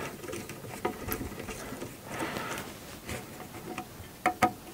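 Light clicks and scraping of a hand screwdriver and small screws being worked into aluminium frame plates, with two sharper metal clicks close together near the end.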